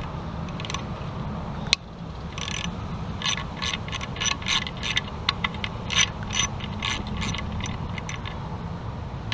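Hand socket ratchet clicking while backing out the bolt that holds a crankshaft position sensor on an engine block. There is one sharp snap a little under two seconds in, then irregular runs of ratchet clicks, a few per second.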